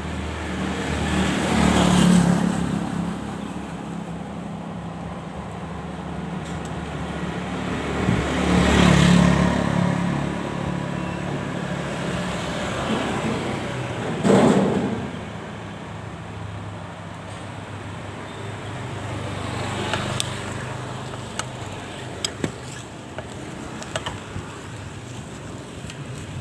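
Road traffic: vehicles pass by one after another, each swelling and fading, four times, with the sharpest pass about halfway through. A steady engine hum runs underneath, and a few small clicks come near the end.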